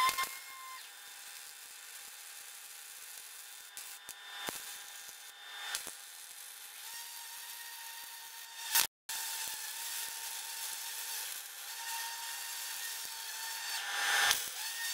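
MIG welder crackling in short runs on steel, over the steady hiss and whine of sanders working on sheet metal.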